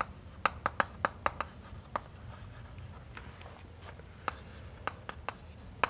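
Chalk writing on a chalkboard: an irregular string of short, sharp taps and scratches as a word is written out.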